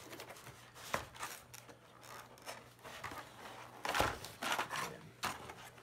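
Cardboard shipping box being handled and opened: rustling and scraping of cardboard and packing, with a few sharp knocks, the loudest about four seconds in.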